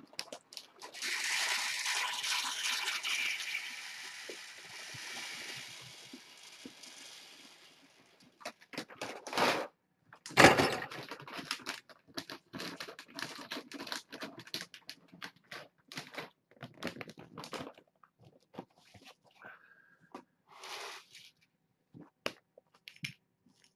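Dry kitten food poured into a bowl: a continuous rattle of kibble for several seconds that slowly fades out. It is followed by scattered clicks and knocks, with one louder knock about ten seconds in.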